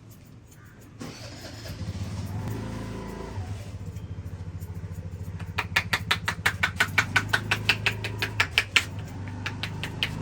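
Quick rhythmic hand slaps of a head massage, several a second, begin about halfway through and are the loudest sound. Under them a motor vehicle's engine drones steadily from about a second in.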